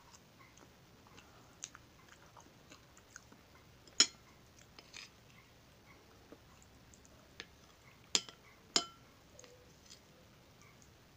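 Close-up eating sounds of a man chewing chocolate cake: faint mouth smacks and small clicks, with three sharp clinks of a metal fork, one about four seconds in and two close together around eight to nine seconds in.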